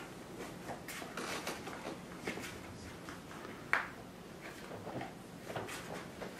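Dog chewing and tearing at a cardboard beer box: irregular scrapes, rustles and small rips, with one sharper crack a little past halfway.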